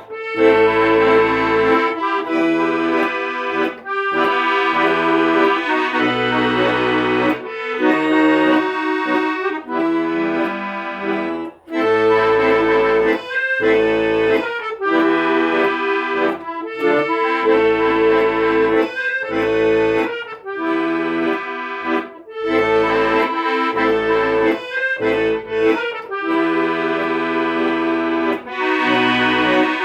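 Instrumental music without singing: a melody of held notes over sustained chords and bass notes that change every second or so.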